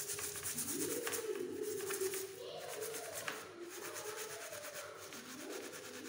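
Green scouring pad rubbing quickly over a plastic power plug, a rapid rasping scrub as grime and dirt are scoured off the plug. Low cooing calls sound behind it at intervals.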